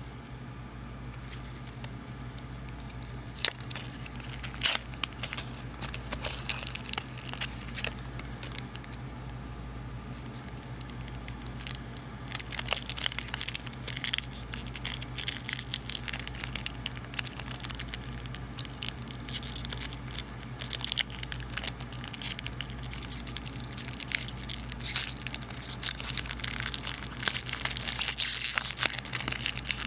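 Foil wrapper of a Pokémon Fusion Strike booster pack being torn open by hand. It crinkles and crackles in scattered snaps at first, then densely from about a third of the way in, over a steady low hum.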